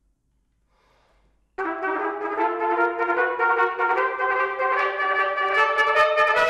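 Near silence, then about a second and a half in a trumpet comes in loudly and plays a phrase of held notes that change in pitch.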